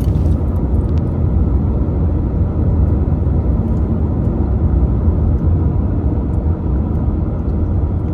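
Steady low rumble of a moving car, an even road and engine noise with no changes.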